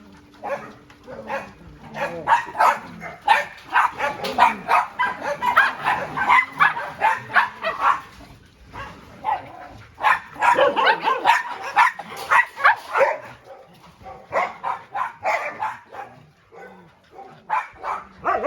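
Many dogs barking and yelping at once in a dense overlapping chorus, which thins out near the end.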